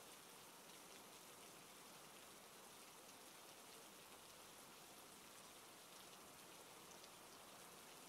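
Faint steady rain: an even hiss with scattered small ticks of drops.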